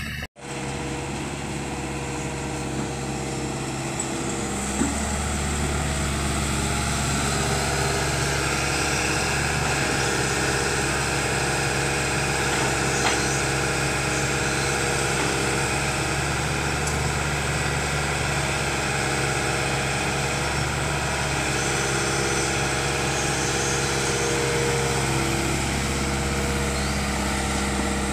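Excavator's diesel engine running steadily under work, starting just after a brief dropout and getting a little louder about five seconds in.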